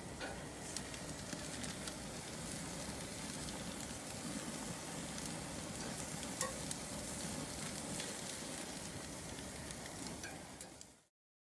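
Raw ground-beef slider patties sizzling on the hot grates of a gas grill as they are laid on, a steady hiss with scattered crackling pops. It cuts off suddenly near the end.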